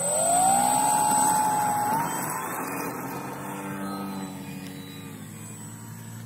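RC model plane's motor spooling up to full throttle for takeoff: a high whine that rises quickly, holds steady, then steps up briefly about two seconds in. It then fades and drops slightly in pitch as the plane climbs away.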